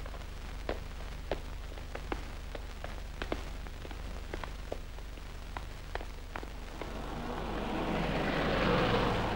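Worn old film soundtrack: a steady low hum with scattered sharp clicks and crackles, then a rushing noise that swells over the last two seconds or so.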